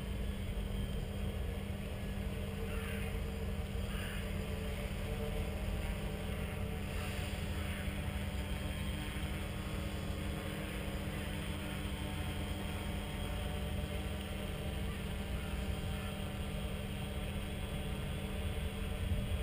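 Quadcopter hovering at a distance, a steady hum from its motors and propellers, with wind rumbling on the microphone.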